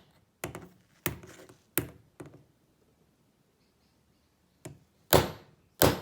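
Hammer blows driving a blade into the seam of a plastic-coated lockout padlock to start a groove: a few sharp strikes and a lighter tap, a pause of about two seconds, then a light tap and two hard strikes near the end.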